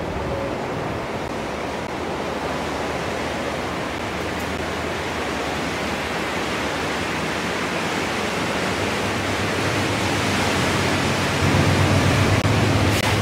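A train's snow plough ploughing through deep snow: a steady rushing noise of snow thrown aside, slowly growing louder as it approaches. A low steady hum from the train joins in near the end.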